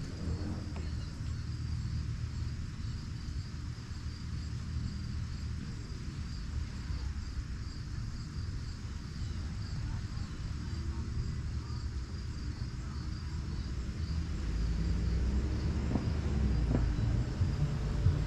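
Crickets chirping steadily in a high, finely pulsing chorus over a low outdoor rumble that swells near the end.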